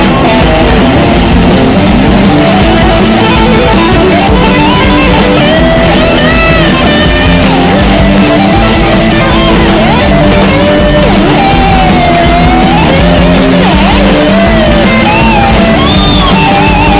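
Loud rock music: an electric guitar playing a bending lead line over a steady drum beat.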